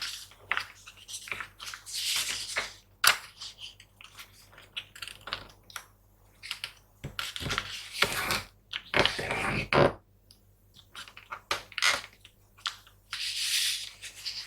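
A sheet of paper being folded and creased by hand: irregular crinkling rustles and sharp crisp clicks, with two longer stretches of rustling about halfway through.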